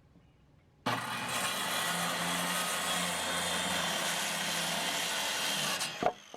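A power saw cutting through lumber for about five seconds, starting suddenly about a second in and stopping near the end, with a steady hum under a loud, even cutting noise.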